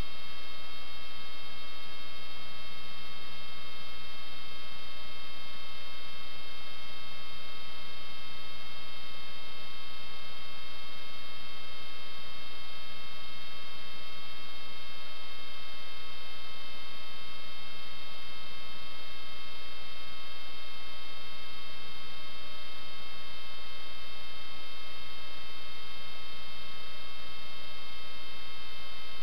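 Steady electrical hum with a set of fixed high-pitched whining tones above it, unchanging throughout: interference on the audio track of a sewer inspection camera system.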